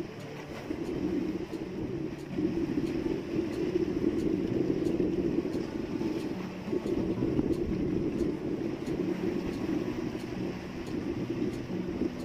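Outrigger fishing boat's engine running steadily, with wind and sea noise; it grows louder about two seconds in.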